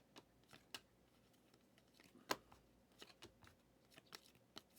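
Faint scattered clicks and flicks of Prizm football trading cards being handled and sorted, the loudest about two seconds in.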